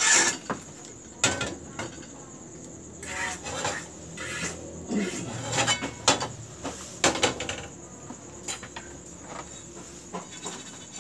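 Metal frying pans knocking and scraping on a gas stove as they are picked up, set down and tilted to swirl batter: a string of sharp clatters a second or two apart.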